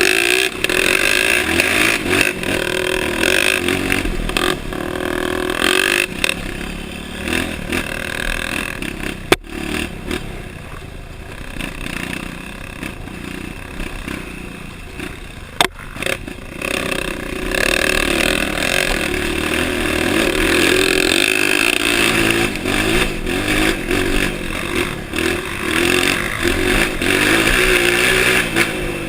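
Honda CRF dirt bike engine running as the bike is ridden, the revs rising and falling. It eases off for several seconds in the middle, with two sharp clicks about nine and fifteen seconds in, then pulls harder again.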